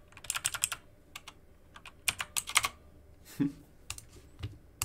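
Typing on a computer keyboard: key clicks in quick runs during the first three seconds, then a few single clicks, as a misspelled word is deleted and retyped.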